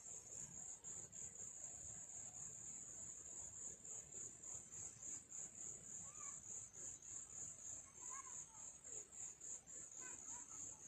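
An insect trilling in a steady, high-pitched pulsing buzz, several pulses a second, with a few faint short chirps about six, eight and ten seconds in.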